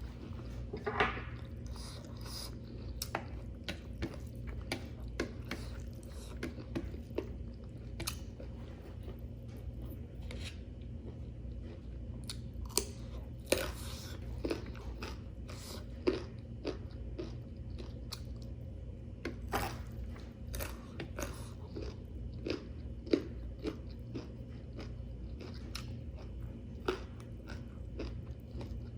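Close-miked eating sounds: a person chewing a meal of rice and chicken curry, with wet mouth clicks and occasional crunchy bites, over a steady low hum.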